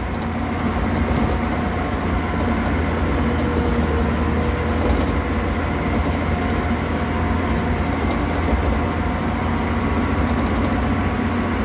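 Caterpillar 12H motor grader's six-cylinder diesel engine running steadily under load, heard from inside the cab as the grader works material with its blade. A thin, steady high whine sits over the low rumble.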